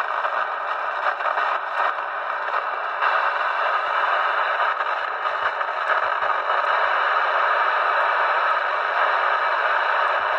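Moonraker Minor 40-channel UK FM CB radio hissing steadily through its speaker with the squelch open, as it is stepped through empty channels with nothing being received.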